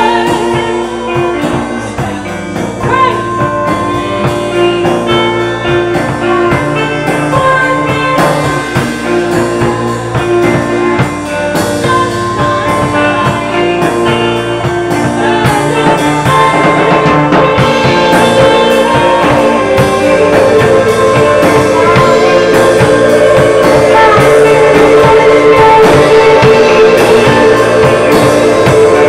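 A live rock band playing an instrumental passage of guitars over a drum kit, building gradually louder and fuller through the second half.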